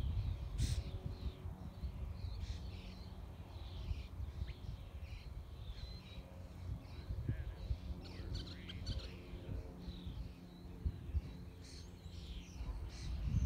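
Wild birds chirping and calling in many short, scattered notes, over a steady low rumble.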